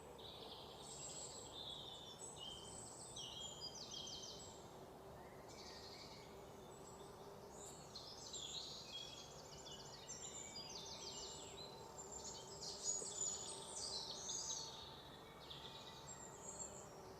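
Faint chirping and quick trills from several small birds, coming in repeated bouts, busiest about two-thirds of the way through.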